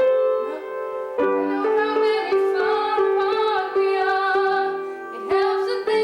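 A voice singing a slow song to piano accompaniment, sustained notes with the piano chords struck underneath.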